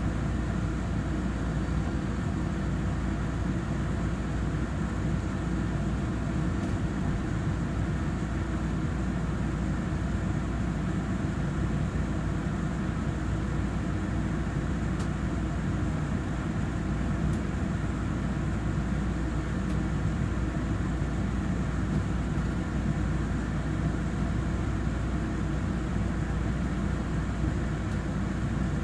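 Steady low hum and rumble inside a carriage of an EMU3000 electric multiple unit.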